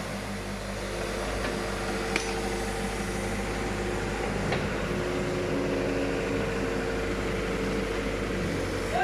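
Road construction machinery running with a steady engine hum and low rumble, with a few sharp knocks, one about two seconds in and another near the middle.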